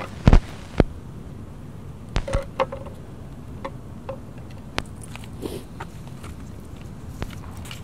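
Scattered sharp knocks and taps, the two loudest in the first second and a quick cluster of three about two seconds in: footsteps and a small object being set down on concrete steps. A steady low background noise runs underneath.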